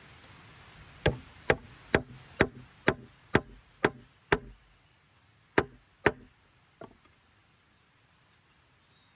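A thin wooden wedge being driven into a split in a log joint with a striking tool: eight sharp knocks about two a second, a short pause, then two more and a faint last tap.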